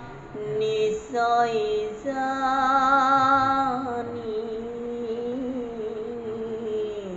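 Solo voice chanting a Bhagavat verse in a slow melodic style: a few short sung phrases, then one long held note from about two seconds in that dips slightly and wavers toward the end.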